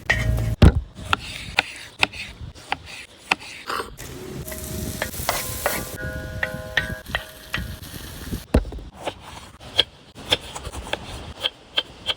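Cooking in a pan: a utensil repeatedly clicks and scrapes against it while food sizzles, with a few short metallic rings about halfway through.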